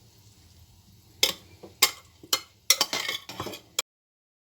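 A utensil stirring cheese into the white sauce in a pot, clinking and knocking against the pot several times. The sound cuts off suddenly near the end.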